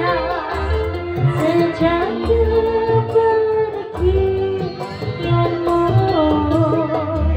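Live band music with a woman singing into a microphone, her voice wavering in pitch over a steady low beat, with electric guitar in the band.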